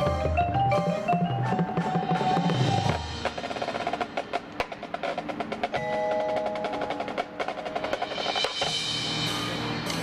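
Marching band playing its field show, with mallet keyboards and drums to the fore. For the first three seconds a run of rising notes plays over loud low notes. It then drops to quieter, choppier percussion hits and held notes.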